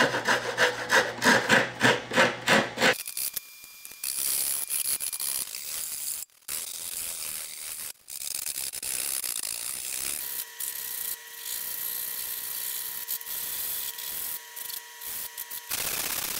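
A wood chisel paring and scraping pine: loud, regular strokes about three a second for the first few seconds, then a steadier, quieter scraping.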